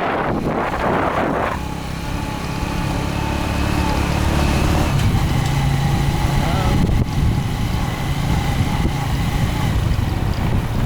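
Motorcycle engine running steadily as the bike rides along, with a rush of noise over it in the first second and a half.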